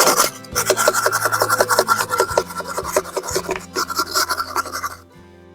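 Rapid back-and-forth scrubbing of rust off a steel wheel rim's mounting surface, stopping about five seconds in. Background music plays underneath.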